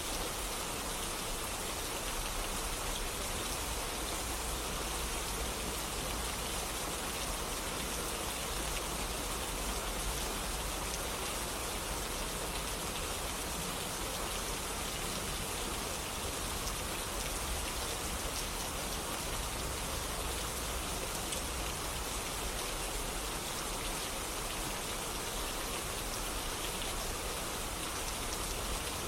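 Steady rain falling, an even hiss with a fine patter of many small drops hitting a surface.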